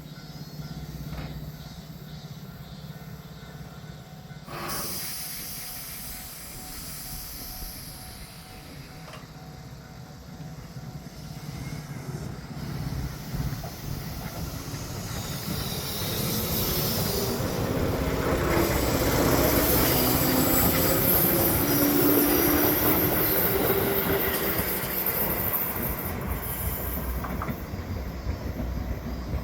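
Tobu 8000 series electric train running at the station: the rumble and rail noise grow louder to a peak about two-thirds of the way through, with a high hiss and some squeal, then ease off. A short sharp sound comes about four and a half seconds in.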